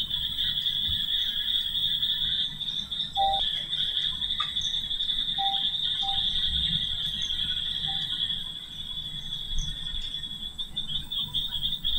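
Steady high-pitched chirring of insects with a low hum beneath it. A few faint short tones come in the middle.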